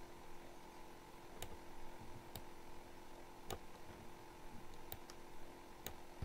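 About six faint, sharp computer mouse clicks, spread unevenly over several seconds, over a low steady electrical hum.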